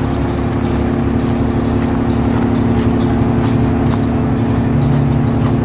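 Diesel engine of a 2002 Sterling LT8500 rear-loader garbage truck running steadily, with a lower note joining in near the end.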